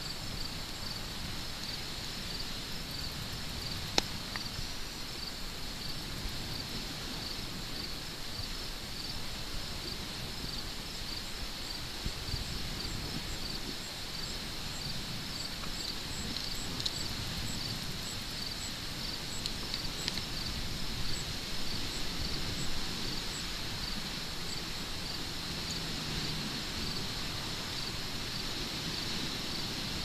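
Crickets chirping in a steady, even rhythm, with a low rumble underneath and a single sharp click about four seconds in.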